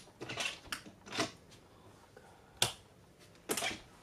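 Cabin balcony door handle and latch being worked: a series of short clicks and rattles, with one sharp click about two and a half seconds in, while the door stays shut.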